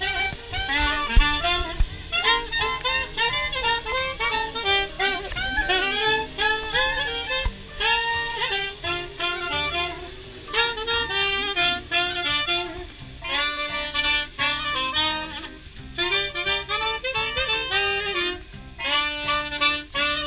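Clarinet and saxophone playing a jazzy tune together live, in phrases with short breaks between them.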